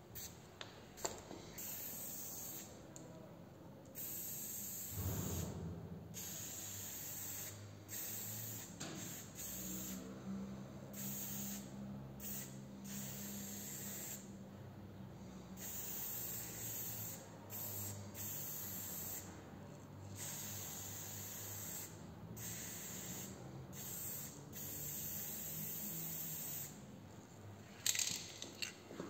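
Aerosol spray-paint can spraying in repeated bursts of hiss, each a second or two long with short pauses between. A faint low hum lies underneath, and there are a few sharp knocks near the end.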